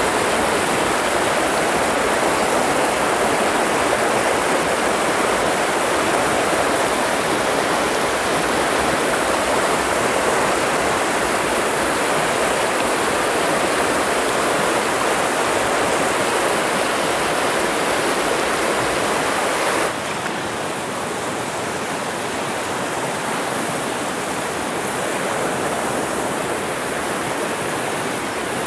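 Fast river water rushing over rocks in whitewater riffles, a steady, loud rush. About twenty seconds in it turns a little quieter and thinner.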